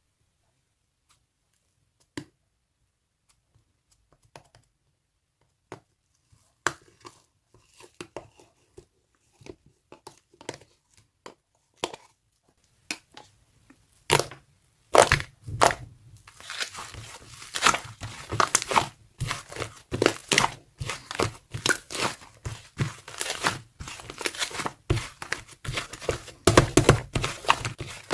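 Sticky slime clay being squeezed, poked and pulled apart by hand: scattered soft pops and clicks at first, then about halfway in a dense run of crackling, tearing pops as the slime is worked steadily.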